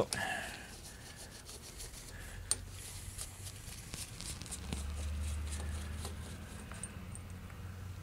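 Hand screwdriver with a Torx T20 bit backing the mounting screws out of a lawn mower carburetor: faint scraping of the bit in the screw heads with light metal clicks, one sharper click about two and a half seconds in. A low hum swells in the middle and fades.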